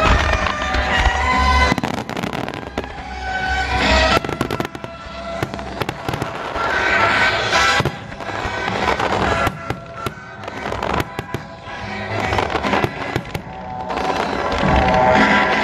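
Aerial fireworks shells bursting, with rapid crackling and popping throughout, over loud music that plays alongside the display.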